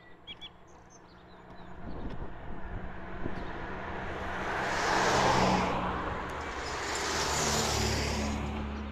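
Two cars driving past close by on a tarmac road, one after the other: tyre and engine noise swells to a peak about halfway through, eases, then swells again for the second car a couple of seconds later, with a low engine hum. A few bird chirps right at the start.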